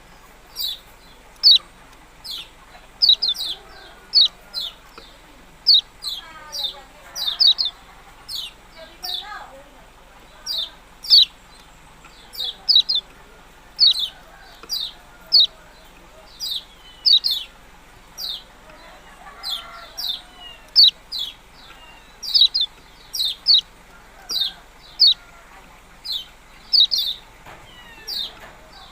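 A kecial kuning, a small yellow songbird, calling with short, sharp 'ciak' chirps. The chirps sweep quickly downward and come mostly in quick pairs and threes, repeated about once a second.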